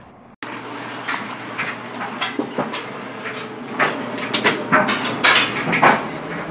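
Irregular knocks, clicks and rustles of a handheld camera being carried through a house while a wooden interior door is opened, starting abruptly about half a second in.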